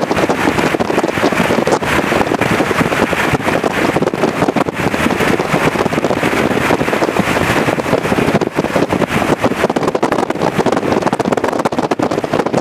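Strong wind buffeting the microphone: a loud, steady rushing noise with constant crackle, with a vehicle running underneath it.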